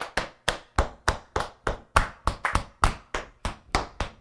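Tap shoes striking a wooden floor in an even rhythm, about four sharp taps a second: a beginner tap warm-up rudiment drill.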